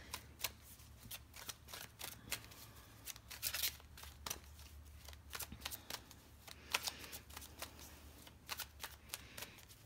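An Angel Answers oracle deck being shuffled by hand: faint, irregular flicks and taps of cards sliding against one another, over a low steady hum.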